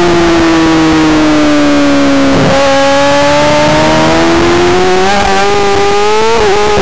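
Yamaha R6 600cc inline-four race engine heard onboard at speed. Its pitch sinks for the first couple of seconds while the bike is leaned over in the corner, then climbs steadily as it accelerates out, with a brief dip in pitch near the end.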